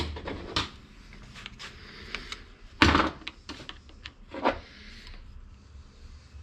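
Scattered clicks and knocks of metal parts of a disassembled tractor starter motor being handled and worked on, the loudest knock about three seconds in.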